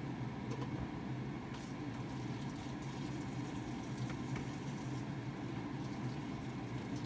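A steady low mechanical hum, with a few faint clicks.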